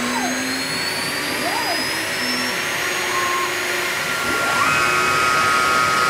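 CNC router's stepper motors whining, rising and falling in pitch with each short move of the V-bit engraving pass, over the steady whir of the spindle running. About four seconds in, a longer rapid move starts: the whine climbs and then holds steady.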